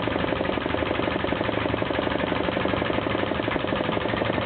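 Air-driven hydraulic forging press running with its foot pedal held down, a rapid, even mechanical pulsing of many beats a second.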